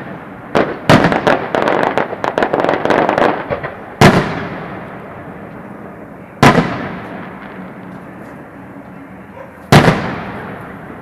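Aerial firework shells bursting overhead. A bang about half a second in is followed by a couple of seconds of rapid crackling reports, then three single loud booms a few seconds apart, each trailing off in echo.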